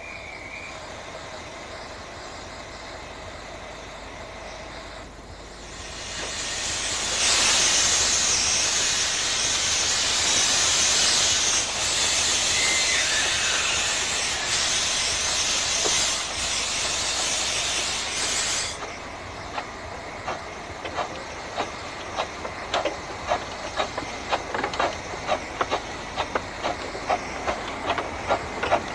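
15-inch-gauge steam locomotive (RH&DR No.5) standing, then letting off a loud, even hiss of steam for about twelve seconds that cuts off suddenly. It then starts away, its exhaust beats coming quicker and quicker.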